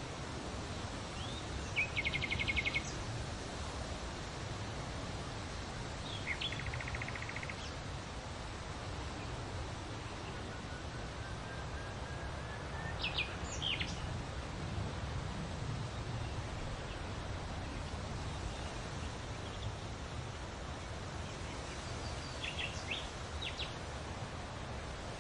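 Steady outdoor background noise with a low rumble, and a few bird calls over it: two short rapid trills about two and six seconds in, then scattered brief chirps later on.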